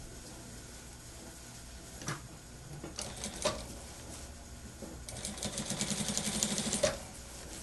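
Industrial sewing machine stitching a cotton shirt: a few short clicks first, then one fast run of stitching lasting about two seconds, starting about five seconds in and stopping abruptly.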